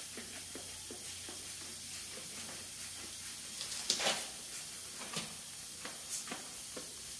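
Trigger spray bottle of glass cleaner squirting along the epoxy cap seal of a wall crack to find air leaks: a few short sprays, the loudest about four seconds in and another about six seconds in, over a steady faint hiss.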